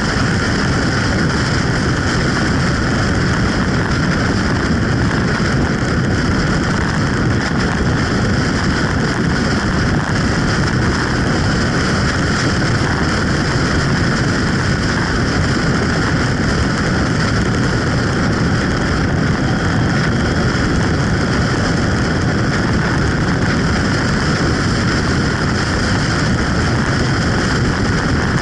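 Steady, loud rush of wind buffeting the microphone on a moving motorcycle, mixed with the motorcycle's running and road noise.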